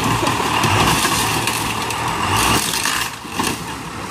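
Lifted Hummer H1's engine working under load as the truck climbs onto a car, with a brief dip in level about three seconds in.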